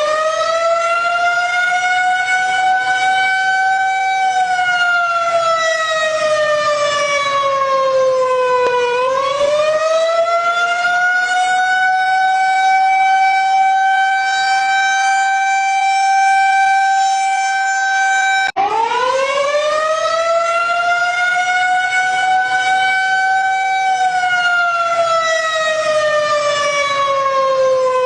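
A siren wailing. Its pitch climbs over a few seconds, holds, then slides slowly down before winding up again. About two-thirds of the way through it cuts out for a moment and restarts with a fresh rise.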